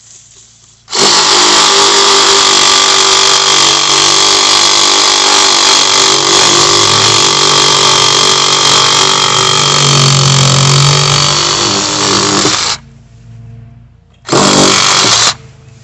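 Hart 20-volt cordless reciprocating saw running at full speed, cutting into a sapling for about twelve seconds before stopping suddenly, then a second short burst of about a second.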